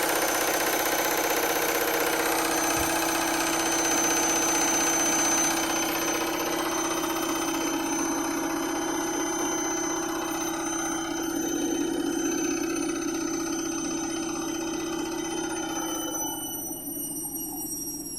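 Candy washing machine on its 1200 rpm final spin, the drum and motor running with a steady hum and a high whine. About two seconds before the end the high whine fades and starts to fall in pitch as the spin begins to slow.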